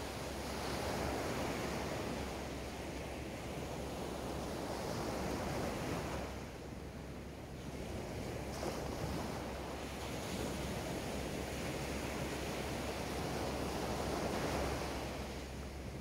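Small waves breaking and washing up a sandy beach, the surf swelling and fading every few seconds, with a brief lull about seven seconds in.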